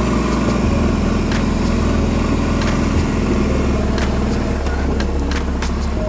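Background music with a deep bass line that moves between held notes, over sharp percussion hits.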